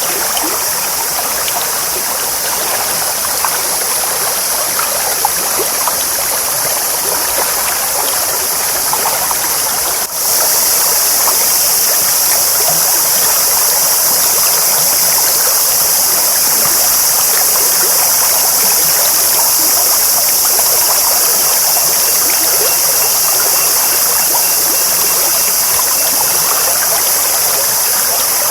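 Clear stream babbling steadily. It drops out for an instant about ten seconds in, then carries on slightly louder.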